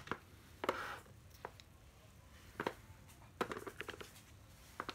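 Handling noise from cordless drills being moved about: scattered light clicks and knocks, with a short rustle about a second in and a cluster of clicks near the end.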